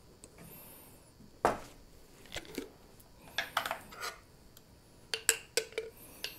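A spoon clinking and scraping against a bowl in short, irregular clusters, with one sharp knock about a second and a half in.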